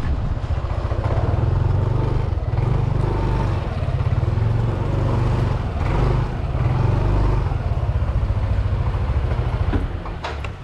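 Motorcycle engine running as the bike rides slowly and pulls in to park. The engine sound drops away sharply near the end.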